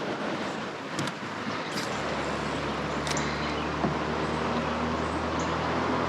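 Flowing river water, then from about two seconds in a steady low whir from a fishing reel as the lure is reeled in after a cast.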